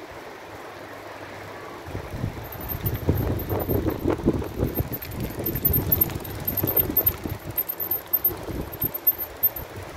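Wind buffeting the microphone in irregular gusts, picking up about two seconds in.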